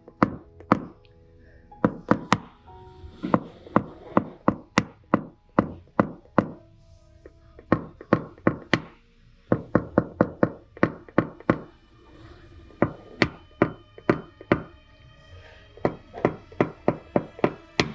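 Rapid sharp taps on a car body panel, a few a second with a short pause midway, as paintless dent repair tools knock down the metal. A ringing tone lingers between strikes.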